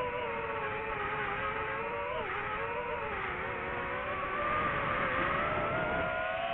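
DJI FPV quadcopter's motors and propellers heard from the drone itself: a steady buzzing whine made of several stacked tones. Its pitch dips briefly about two seconds in, then climbs and gets a little louder in the second half.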